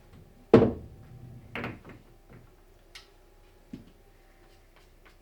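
Pool shot on a billiard table: a sharp clack of balls striking, followed about a second later by a second, softer clack, then a few faint knocks and a low thud as the balls travel. A faint steady hum lies underneath.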